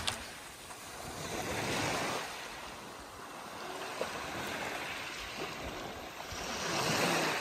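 Small waves washing up a sandy beach, the surf noise rising and falling with swells about two seconds in and near the end.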